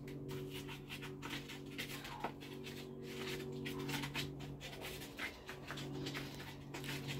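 Irregular scratchy scraping and rubbing of a wooden stick worked against a dried calabash milk gourd as it is prepared, under a steady low hum of held tones.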